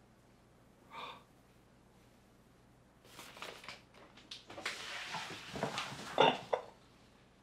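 A short breath about a second in, then a few seconds of irregular rustling and clicking handling noises, loudest just after six seconds.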